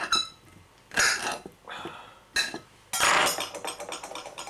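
A small kitchen knife clinking and scraping against a plate as it trims the edges off pineapple rings: four sharp knocks with a short ring, the loudest and longest about three seconds in.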